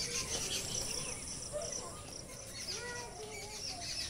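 Outdoor garden background with faint, repeated high chirping.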